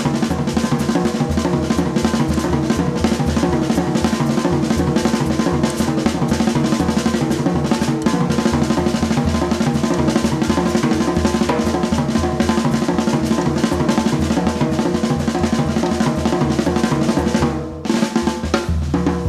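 Live jazz piano trio of piano, double bass and drum kit playing, with busy snare and bass-drum work from the drum kit prominent throughout; the loudness dips briefly near the end. Recorded off an FM broadcast onto cassette tape.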